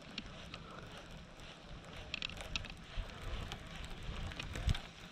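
Wind rumbling on the microphone over open water, with faint scattered clicks and a low bump near the end.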